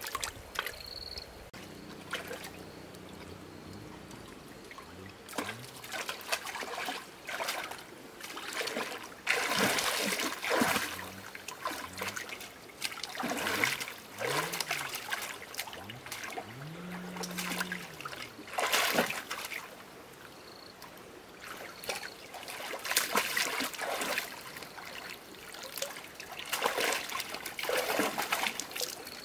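Shallow water trickling, broken by irregular splashes and sloshes, with a few louder splashes about ten and twenty seconds in.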